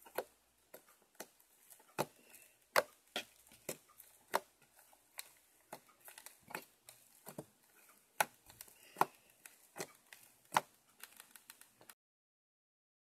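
Fingers poking and squeezing a lump of slime, making irregular sharp sticky clicks and pops a few times a second. The sound cuts off suddenly about a second before the end.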